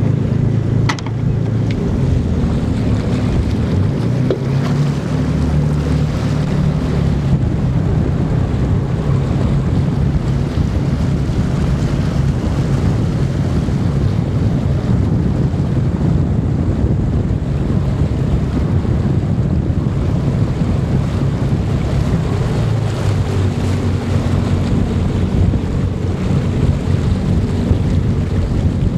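A boat engine running steadily, with wind buffeting the microphone and the rush of choppy water.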